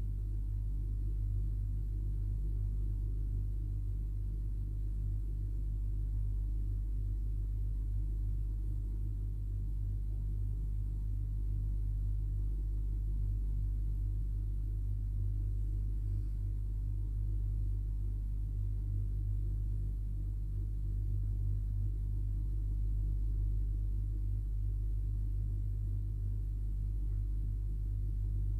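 A steady low hum that holds even throughout, with no distinct events.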